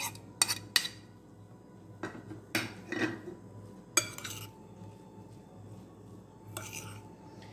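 Metal spoon knocking chopped parsley out of a bowl, then stirring and scraping it through corn couscous in a glass bowl. There are several sharp clinks, three in the first second and then a few more spread out.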